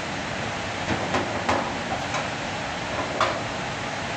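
Several sharp clicks and knocks of a hand tool working on a stainless-steel commercial dishwasher's wiring, over a steady rushing drone; the loudest knock comes about three seconds in.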